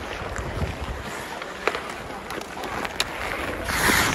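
Ice hockey skates scraping and gliding on outdoor ice, with sharp clicks of sticks hitting the puck or the ice. Near the end there is a louder hissing scrape as skate blades cut the ice close by.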